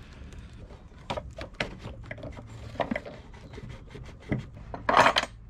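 Rubbing and scattered clicks of a rubber breather hose being worked onto the fitting of an engine catch tank, with a sharper knock near the end.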